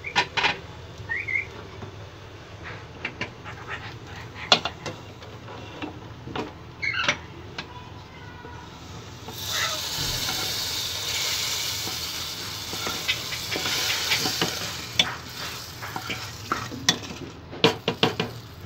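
Wooden spatula scraping and knocking ghee-roasted vermicelli and coconut around a nonstick pan. About nine seconds in, a loud sizzling hiss starts as the hot, ghee-fried vermicelli is scraped into the pot of simmering milk, lasting about five seconds, followed by more scrapes and taps of the spatula against the pan.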